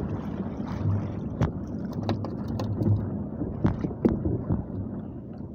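Wind buffeting the microphone and choppy water sloshing against a small outrigger boat's hull, with several sharp knocks on the boat as a handline is hauled in.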